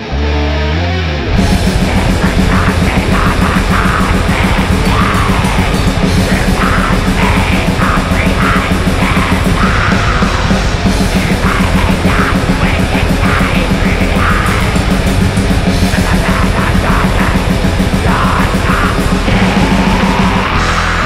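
Black metal song: after a brief sparser opening, the full band comes in about a second and a half in with distorted guitars and fast, dense drumming, under harsh yelled vocals.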